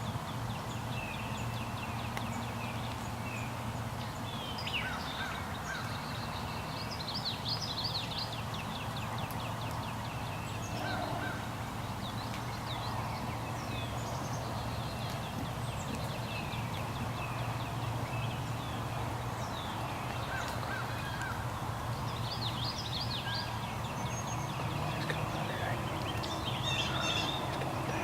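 Wild turkey calling, with songbirds chirping and trilling throughout over a steady low hum.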